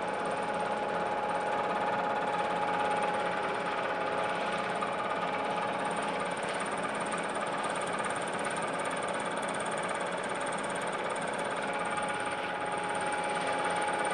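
Milling machine running under a steady cut, its cutter machining a flat face on a metal block held in the vise. Continuous machine noise with a steady whine.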